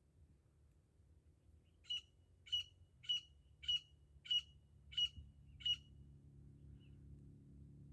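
Grey francolin (desi teetar) giving seven short, sharp, high calls at nearly two a second, starting about two seconds in and stopping near the end. This is the female's call, used by hunters as a lure.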